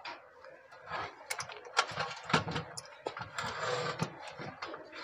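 Irregular clicks, knocks and rustling of electrical wire and small wiring parts being handled on a bench, with a short scraping rustle about three and a half seconds in.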